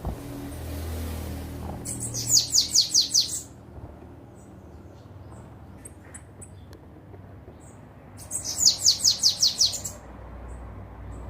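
Bananaquit singing: two bursts of about seven rapid, high, thin down-slurred notes a few seconds apart, with faint chips between.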